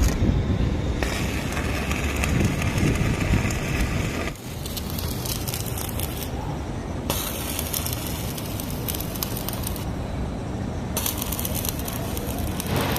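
Electric arc welding crackling and hissing in several bursts a few seconds long, with short pauses between beads, over a steady low rumble.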